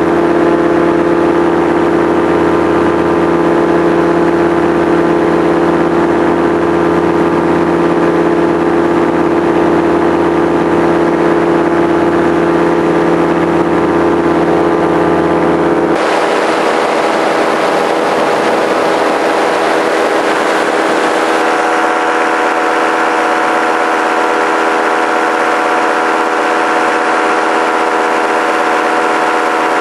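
Light aircraft's engine and propeller running steadily in cruise, a constant droning hum. About halfway through the sound changes abruptly: the deep hum drops away and it becomes thinner and noisier.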